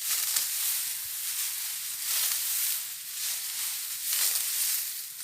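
Rice stalks being cut by hand with a blade, the dry stalks rustling and swishing. Each stroke comes as a hissy swell, roughly once a second.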